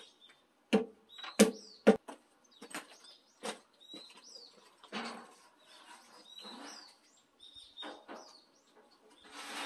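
Three sharp knocks in the first two seconds as the carpenter works at the base of a log post, then softer bumps and scrapes as a log beam is carried and lifted onto the post. Small birds chirp throughout.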